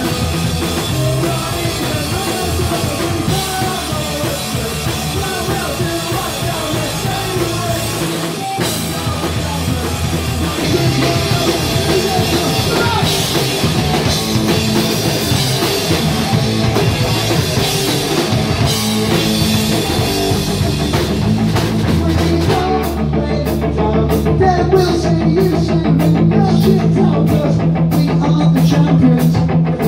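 Live punk rock band playing: distorted electric guitar, electric bass and a drum kit, with the singer shouting into the microphone. The band cuts out for an instant about eight seconds in. Near the end the cymbal wash gives way to a tighter, chopped rhythm.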